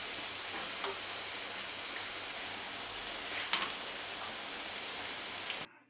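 Hot oil sizzling steadily as spinach and urad dal vadas deep-fry, with a couple of faint light clicks. The sizzle cuts off suddenly near the end.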